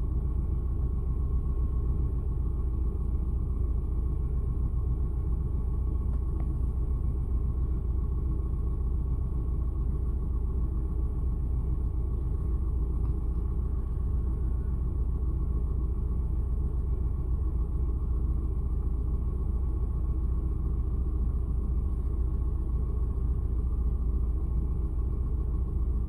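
Car engine idling, heard from inside the cabin as a steady low rumble with a faint steady whine above it.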